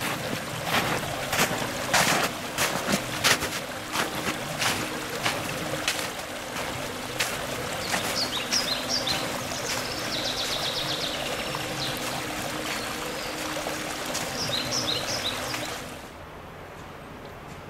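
A steady rushing noise like running water, with irregular crackles in the first few seconds and a few short high chirps around the middle and again near the end. It drops to a much quieter background about sixteen seconds in.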